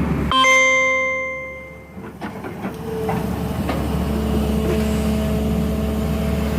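Excavator diesel engine running steadily, broken about a third of a second in by a single ringing tone that fades over about a second and a half. The engine noise then builds back, with a few knocks.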